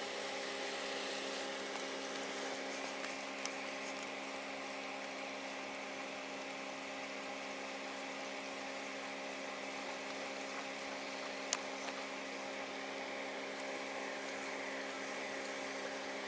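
A machine's steady hum: several even pitched tones with a hiss above them, unchanging throughout. A single sharp tick about eleven and a half seconds in.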